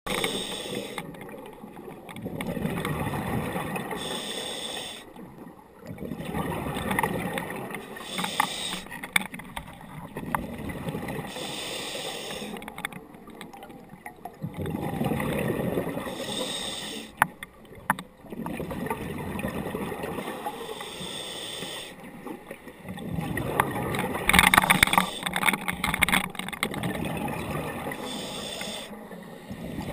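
A scuba diver's regulator breathing underwater: a hiss on each inhale alternates with a gurgling rush of exhaled bubbles, about every four seconds, the loudest exhale near the end. A few sharp clicks fall in between.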